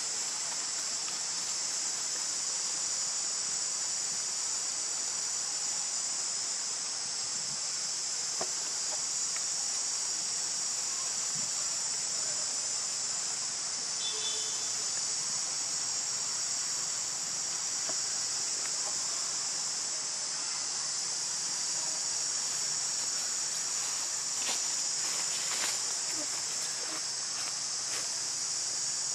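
A steady, high-pitched insect chorus that does not let up, with a few faint short chirps and ticks over it.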